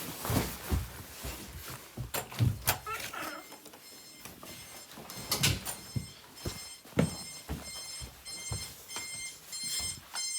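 Knocks and thumps, then from about six seconds in an electronic alarm starts beeping, a high pulsing beep repeating a few times a second.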